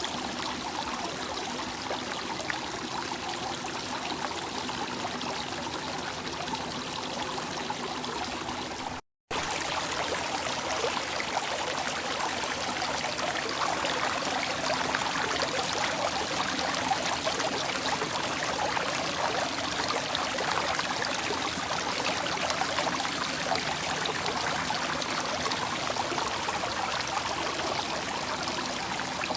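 Flowing water running steadily, like a small stream. About nine seconds in the sound cuts out completely for a moment, then resumes slightly louder.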